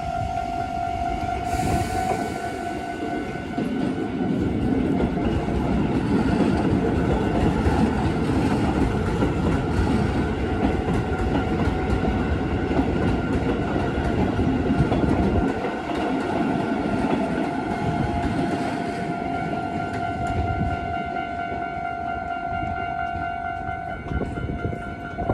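A Keisei electric train passes through a level crossing, its wheels rumbling and clattering over the rails for about fifteen seconds from about four seconds in. The crossing's warning alarm keeps ringing on one steady pitch, heard most clearly before and after the train goes by.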